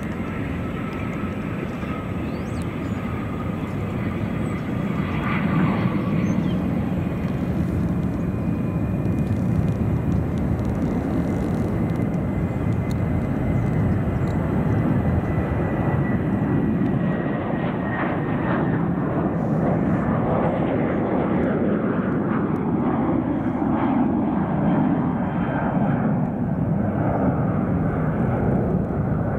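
Jet aircraft engines running: a steady rushing noise that grows louder over the first several seconds, with a thin high turbine whine over it that drifts slowly down in pitch.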